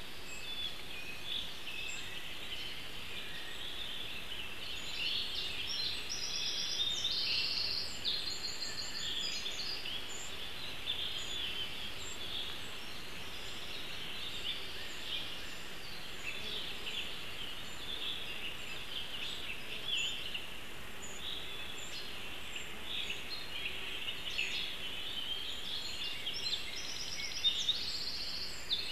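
Woodland birds singing over a steady background hiss, with a higher, quicker song phrase about six seconds in and again near the end.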